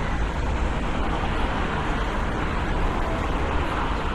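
Steady city street ambience: road traffic noise with a low rumble and no distinct events standing out.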